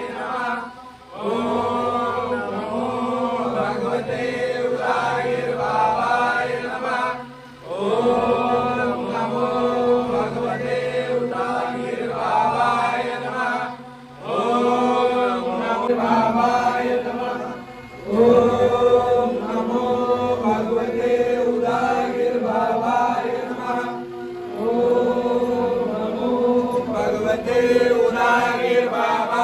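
Hindu devotional chanting in long melodic phrases with held notes, each phrase lasting several seconds and separated by short breaths.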